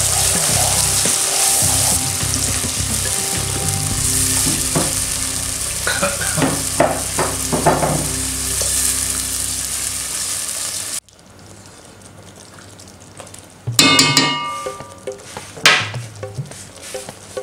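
Masala paste sizzling as it fries in oil in a heavy pot, stirred and scraped with a silicone spatula. About 11 s in the sizzle cuts off suddenly. What follows is a quieter bed of cooking noise with a ringing clink and a sharp click.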